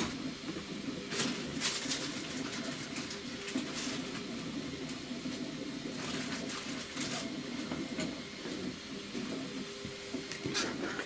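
Off-bench rummaging through small parts in search of a thin cable tie: irregular clicks and rattles over a steady rustling background.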